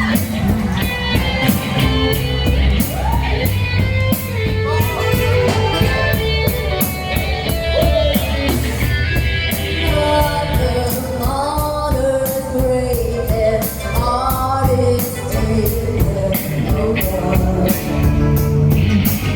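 Band music with a lead singer over a steady drum beat with cymbals, and guitar.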